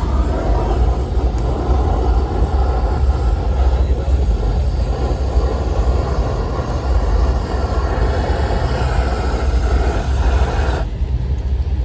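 Propane roofing torch burning with a steady hiss over a low rumble as it heats a roofing patch; the hiss cuts off suddenly near the end, leaving only the low rumble.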